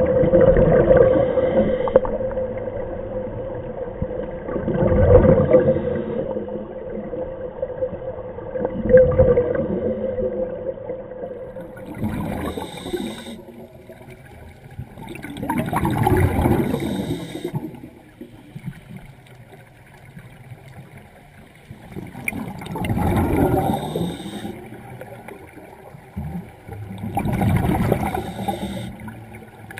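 Scuba divers breathing underwater through demand regulators, with exhaled bubbles gurgling out in a loud swell about every four to six seconds and quieter stretches between breaths.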